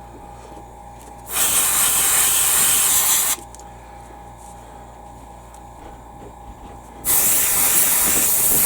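Airbrush spraying acrylic paint in two bursts of hiss, each about two seconds long, the second starting about seven seconds in.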